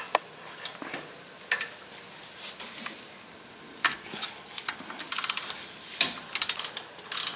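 Ratchet wrench loosening a brake caliper pin: scattered metal clinks of the socket and tool, then short runs of rapid ratchet clicks a little after five seconds in and again about a second later.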